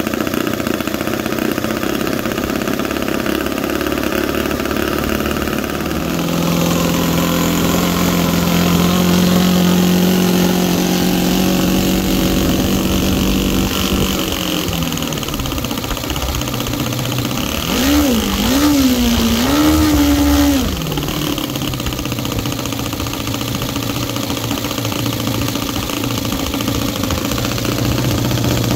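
Saito FA-120S four-stroke glow engine turning a propeller on a test stand, freshly rebuilt with new ball bearings and on its first run. It runs steadily, steps up to a higher steady speed about six seconds in, and eases back down. Around three quarters of the way through the throttle is blipped up and down a few times, the loudest part, and then it settles back to a lower idle.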